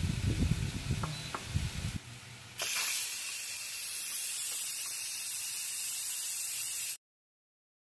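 Instant Pot Duo electric pressure cooker venting steam through its steam release valve on quick release: a loud, steady hiss that starts about two and a half seconds in and cuts off suddenly near the end. Before it come low handling rumble and a couple of light clicks.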